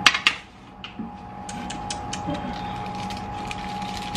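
Clatter of a baking tray and coated cauliflower florets being handled at a countertop electric oven: two sharp knocks at the very start, then scattered light clicks, over a steady high hum.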